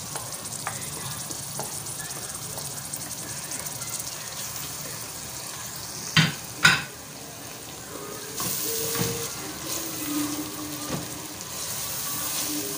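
Blended pepper paste frying in hot palm oil, sizzling steadily while a wooden spoon stirs it. Two sharp knocks about six seconds in.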